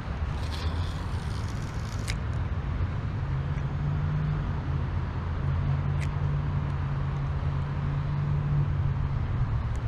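Steady low outdoor rumble of wind on the microphone and a low engine-like hum of traffic, with three sharp clicks about half a second, two seconds and six seconds in, from the spinning reel and rod being cast and reeled.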